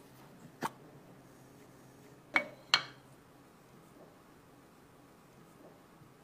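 Metal tins clinking as they are handled and set down: a light tap under a second in, then two sharp, ringing clinks about half a second apart.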